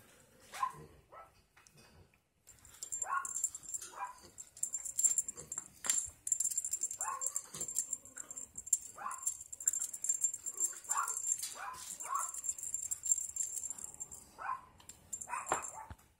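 Young parti Yorkshire terrier puppies giving short, high yips and little barks, about one a second, over a steady high-pitched hiss.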